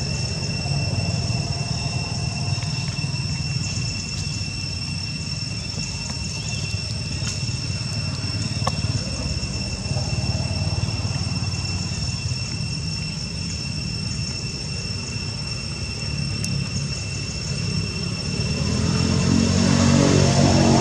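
Low rumble of a motor vehicle engine that swells louder near the end, under a steady high-pitched whine.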